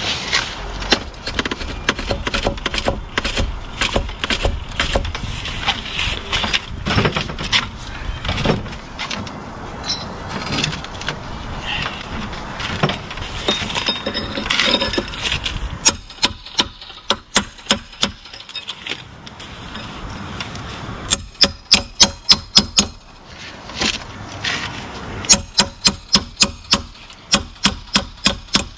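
Metal clanking and scraping against brick as an old rusted steel angle-iron lintel is worked loose and pulled out of the wall. After that come three runs of quick, sharp knocks, about five a second.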